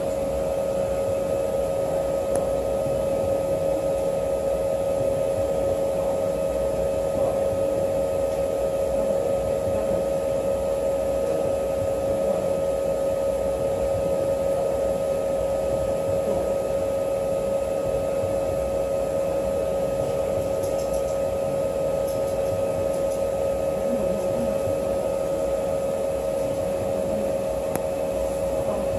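Steady machine hum with a constant mid-pitched whine and a fainter higher tone, from a wafer prober and the surrounding cleanroom equipment running while a wafer is being probed.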